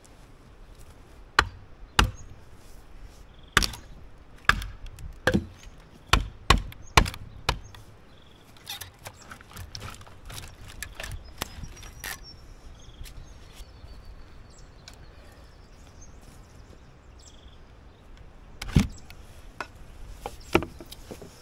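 Hatchet chopping into a hardwood log: a run of about eight sharp blows at uneven spacing over the first seven seconds, then two more near the end.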